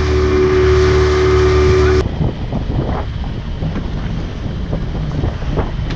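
A small boat's engine running steadily with a hum, which cuts off abruptly about two seconds in. After the cut comes wind buffeting the microphone with splashing water.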